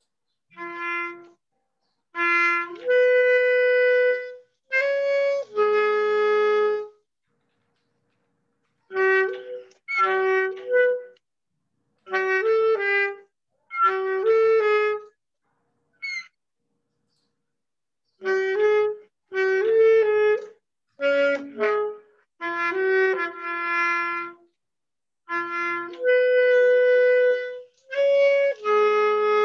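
Alto saxophone playing short phrases of held notes in its middle range, with a longer sustained note near the end. Each phrase cuts off sharply into silence.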